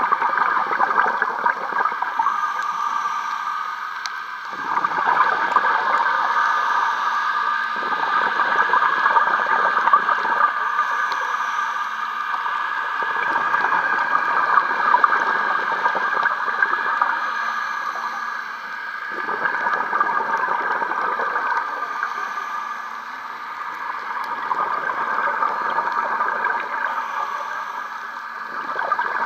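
Scuba diver breathing through a regulator underwater: bubbly, gurgling exhalations every few seconds, alternating with quieter inhalations, over a steady hiss.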